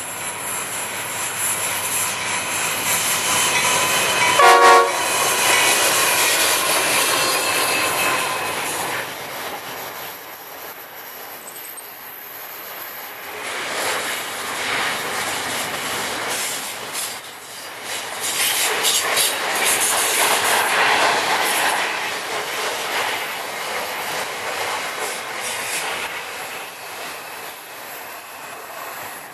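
Diesel-hauled container freight train passing on a curve: one short horn blast about four and a half seconds in, then the container wagons rolling and clattering past with wheels squealing on the curved track.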